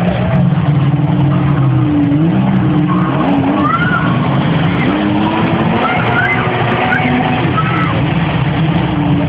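Motor engines running through floodwater, a jet ski's and a pickup truck's, as a steady low drone whose pitch rises and falls as the throttle changes.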